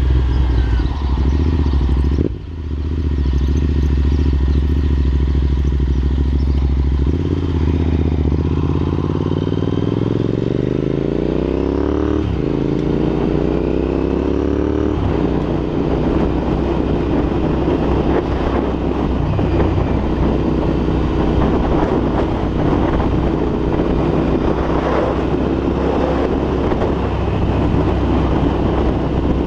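Royal Enfield INT650's 648 cc parallel-twin engine through aftermarket Red Rooster exhausts, on the move. The note dips briefly a couple of seconds in, then climbs through the revs with gear changes about twelve and fifteen seconds in, and settles into a steady cruise. Wind buffets the microphone.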